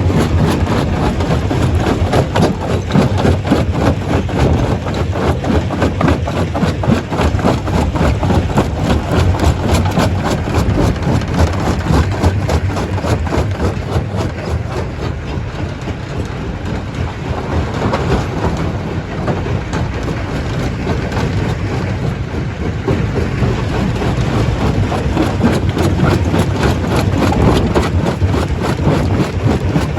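Stone crusher running under load: a continuous heavy machine noise packed with rapid clattering and cracking as rocks are broken, easing off slightly for a few seconds midway.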